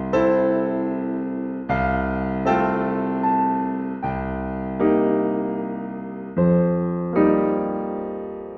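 Slow, gentle solo piano music: soft chords struck about once a second, each ringing on and fading before the next.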